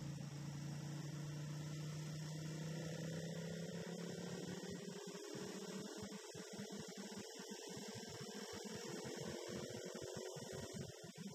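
Motorcycle engine heard as a low, muffled steady hum; from about four seconds in the low tone fades and a higher drone slowly rises in pitch.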